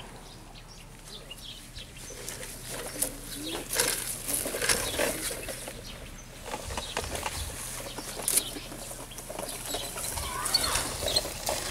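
Plastic toy trucks being handled on grass by children: irregular clicks, taps and rustling, with a few low thumps in the second half.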